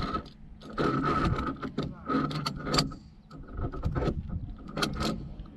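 Via ferrata carabiners scraping along the steel safety cable in irregular bursts, with a few sharp metal clicks.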